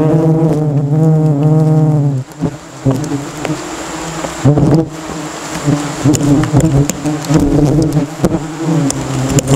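Bees buzzing close by: a droning hum that wavers up and down in pitch as they circle, breaking after about two seconds into shorter, higher buzzes of bees flying past.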